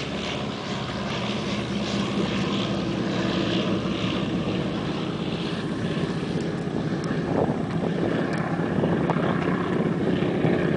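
Twin radial piston engines of a Grumman HU-16 Albatross flying boat droning steadily as it passes low over the water, growing slightly louder.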